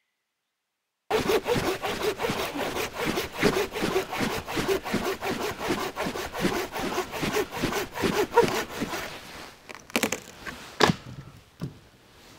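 Hand saw cutting through dry, dead wood with quick, even back-and-forth strokes for about eight seconds, starting about a second in. The sawing stops and is followed by a few separate knocks.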